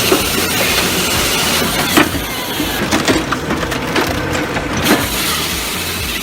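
Firewood processor crushing and splitting logs: a steady loud grinding of wood, broken by several sharp cracks of splintering wood.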